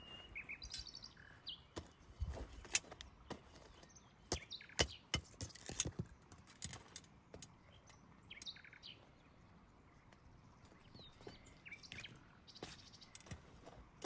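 Birds chirping, with a run of irregular sharp clicks and knocks from about two to six seconds in, which are the loudest sounds.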